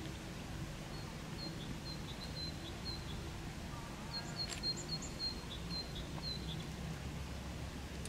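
A small songbird's short, high chirps, repeated two or three times a second in a run of a few seconds, over a steady low outdoor rumble.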